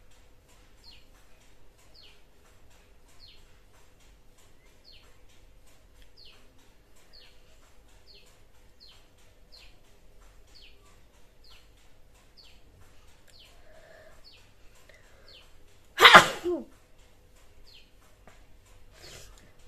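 A person sneezes once, loud and sudden, about sixteen seconds in. Under it a bird gives short falling chirps over and over, faintly, one to two a second.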